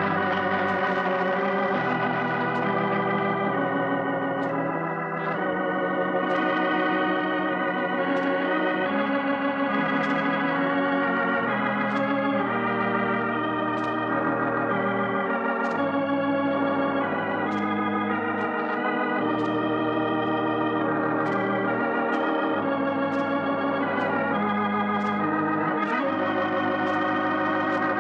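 Organ music playing the programme's closing theme: held chords with a wavering vibrato over sustained bass notes, changing every second or two.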